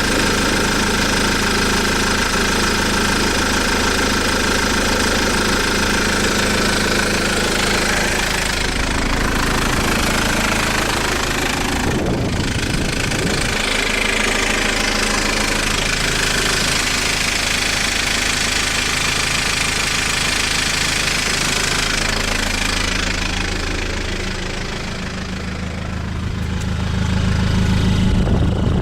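Vehicle engine running steadily with a knock (стук) heard under its note, the sign of a mechanical fault that the owner is recording. The engine note shifts about twelve seconds in and dips briefly near the end before picking up again.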